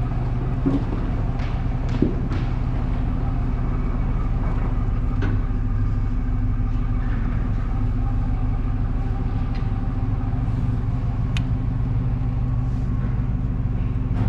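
Truck engine running steadily at low speed, with a few faint clicks and knocks.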